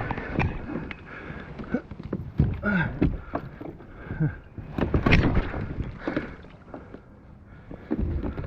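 Kayak on the water: irregular splashing and knocks against the hull, loudest about five seconds in.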